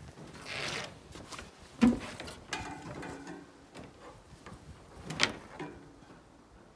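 Handling noises of tools and fittings: scrapes and light clicks, a sharp knock about two seconds in and a smaller knock about five seconds in.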